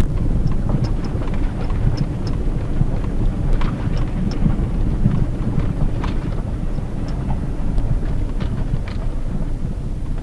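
Cabin sound of a Hyundai Tucson JM with its 2.0-litre four-cylinder petrol engine driving slowly over a rough, broken country road: a steady low rumble of engine and tyres. Scattered light clicks and knocks come from the bumpy surface.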